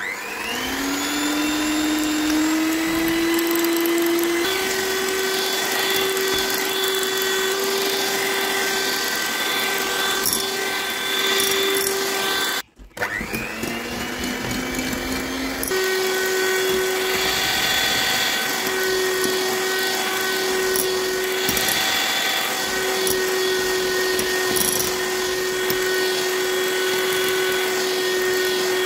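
Electric hand mixer running, its beaters whipping egg whites into foam. The motor whine rises as it spins up at the start, cuts out for a moment about thirteen seconds in, then spins up again and runs steadily.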